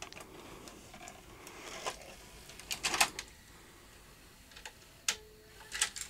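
VHS cassette being pushed into the front-loading carriage of a Panasonic AG-7350 SVHS deck, and the loading mechanism clicking and clunking as it takes the tape in. The loudest clicks come about three seconds in, and there is a short steady hum about five seconds in.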